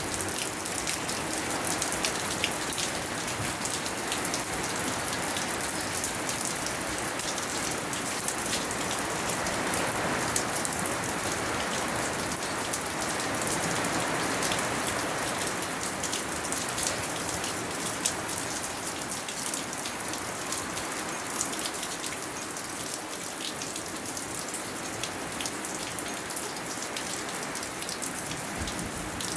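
Steady rainfall, a dense hiss with many individual drops pattering on surfaces, a little heavier partway through.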